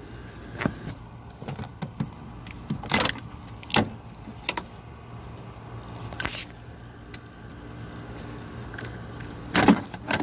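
Plastic car interior trim panels being pulled and handled: scattered knocks, clicks and a few short scrapes over a steady low hum.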